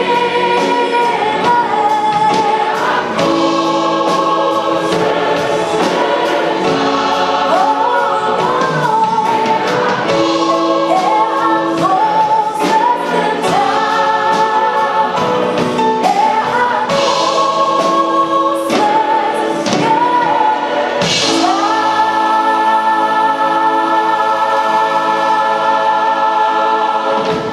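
Large mixed choir of men and women singing a hymn, with the voices moving from note to note, then holding one long final chord over the last six seconds or so.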